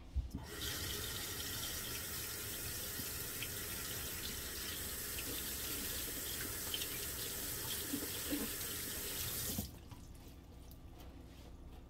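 Kitchen sink faucet running as a green bell pepper is rinsed under it, the stream splashing off the pepper. The water comes on about half a second in and cuts off sharply near the end.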